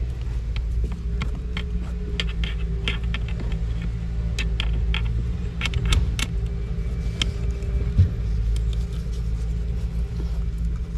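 A steady low motor-like hum with a faint held tone above it, and scattered sharp clicks and knocks, the loudest about eight seconds in.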